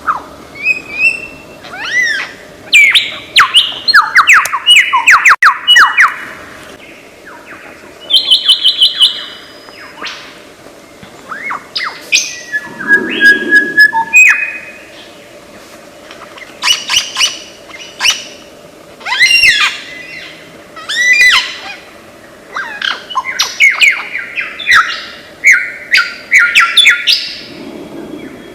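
Lyrebird singing a fast, varied medley of mimicked calls: whistled sweeps, rapid trills, rattles and harsh notes, switching to a new call type every second or two.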